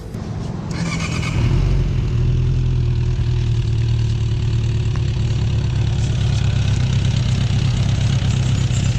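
Suzuki Inazuma 400's four-cylinder engine, breathing through a Yoshimura exhaust, starting up about a second in and then idling steadily.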